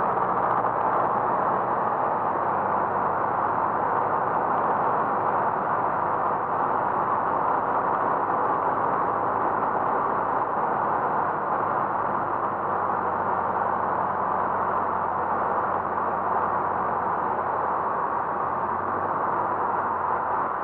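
Light single-engine propeller aircraft's engine and propeller droning steadily, heard from inside the cabin together with a constant rush of air noise.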